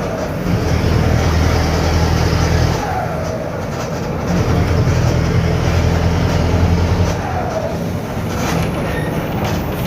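Mercedes-Benz OF-1721 BlueTec 5 bus engine running with a holed exhaust, giving a loud low drone. The drone swells for a couple of seconds, eases off about three seconds in, swells again, then drops back about seven seconds in.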